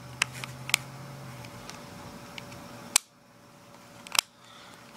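Several sharp plastic clicks from the safety switch of a Daisy 15XT CO2 BB pistol being worked back and forth; the loudest click comes about three seconds in, with another about a second later.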